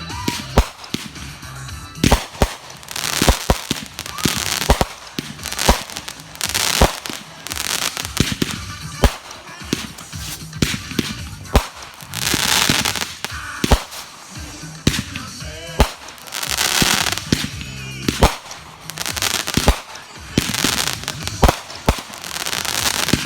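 Consumer fireworks going off: a run of sharp, irregular bangs, with several stretches of crackling hiss lasting a second or two each.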